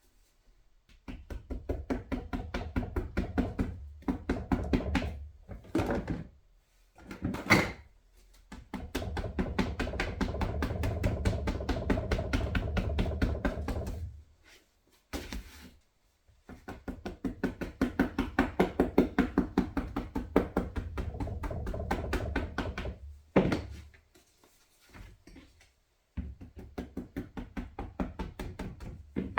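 A bookbinder's rounding hammer tapping rapidly along the spine of a sewn book block, rounding the back before it is put in the backing press. The taps come in runs of several seconds at several blows a second, broken by short pauses and a few single heavier blows.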